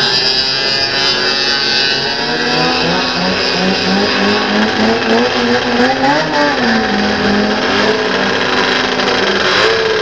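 Racing snowmobile engines running hard at high revs. The pitch climbs in steps for a few seconds, then falls away about six seconds in as the sleds go by.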